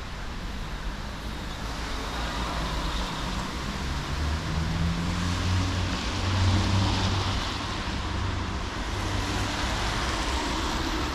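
A car driving past on a city street: engine rumble and tyre noise grow louder, reaching their loudest about six to seven seconds in.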